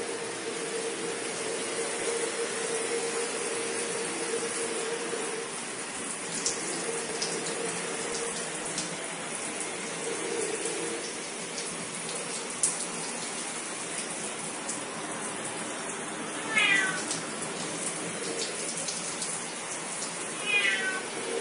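A domestic cat meowing twice, at about sixteen and twenty seconds in, each meow short and falling in pitch, over a steady background hiss and hum. A single sharp click sounds about thirteen seconds in.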